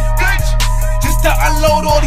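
Hip hop music playing loud, with a heavy bass line, a steady beat and a rapping voice over it.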